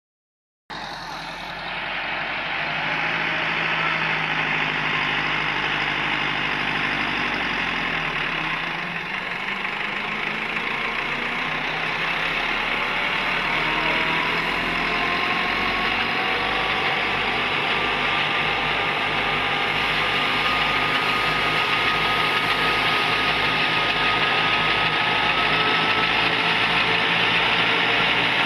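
Tractor engine running steadily with threshing machinery, a dense mechanical din. About eight seconds in, the engine note sags and then recovers. A higher whine climbs slowly through the rest of the sound.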